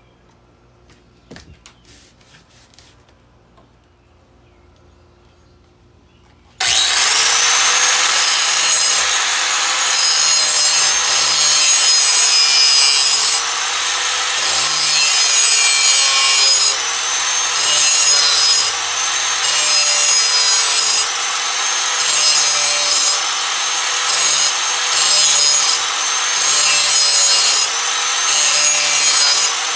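Angle grinder sharpening the edge of a steel lawn mower blade: after a few light handling clicks, the grinder starts about a quarter of the way in with a whine that spins up, then grinds loudly and steadily, the noise dipping briefly every two seconds or so.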